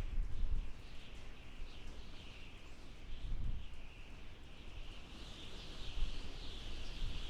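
Wind howling: a high, wavering whistle over a low, gusty rumble.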